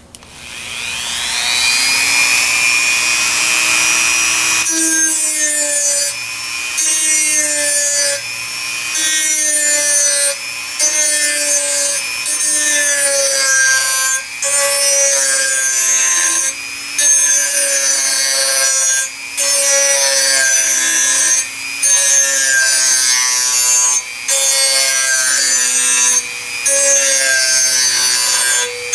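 Dremel rotary tool with a sanding drum, run at about half speed, sharpening the edge of a hardened steel lawnmower blade. Its whine rises as the motor spins up, then grinding starts about five seconds in and goes in repeated strokes along the edge, with a short break roughly every two seconds.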